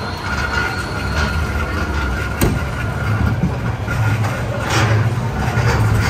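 Ghost train ride car rumbling along its track, with a steady faint whine over the low rumble. A single sharp knock about two and a half seconds in.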